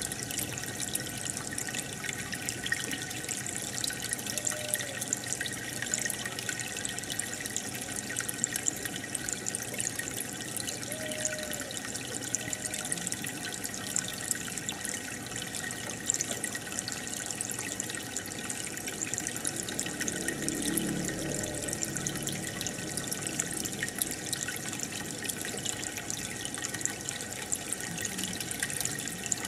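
Home aquarium water bubbling and trickling steadily, with many small drips and pops.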